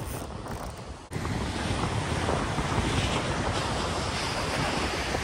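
Wind buffeting the microphone over the wash of ocean surf, a steady rushing and rumbling noise that drops briefly about a second in and then comes back louder.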